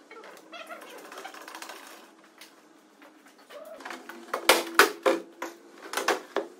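Plastic rear bumper cover of a BMW E90 being pulled off by hand: from about four seconds in, a run of loud sharp cracks and pops as its retaining clips let go. The bumper is resisting being pulled free. Before that there are only faint rustles and creaks.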